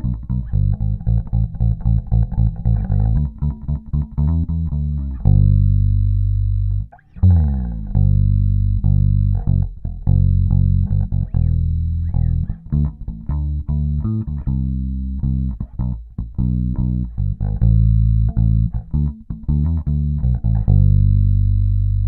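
Epiphone Thunderbird Classic IV electric bass played fingerstyle with both neck and bridge pickups on: quick runs of plucked notes broken by a few long held notes, one about five seconds in and another near the end.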